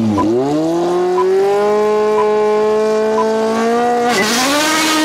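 Racing car engine held at steady high revs, with short electronic beeps about once a second. About four seconds in, the revs drop and climb again as the car pulls away, with a burst of hissing tyre noise.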